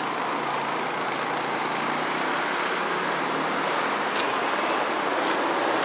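Steady road and engine noise from a moving vehicle.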